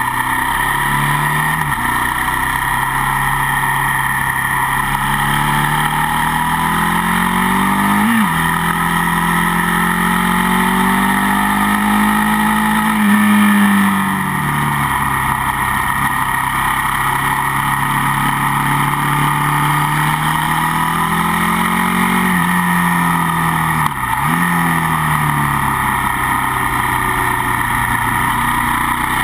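Sportbike engines revving high and held there during a burnout. The pitch rises and falls slowly over several seconds and dips sharply twice.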